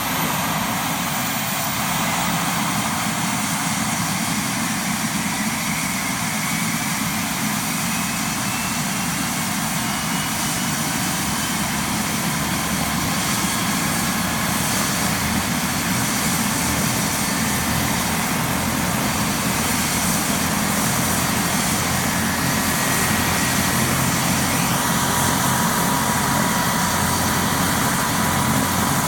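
Turbine helicopter engine spooling up during start-up: a steady running sound with a whine that rises slowly in pitch, loudness creeping up, and a further steady high tone coming in near the end.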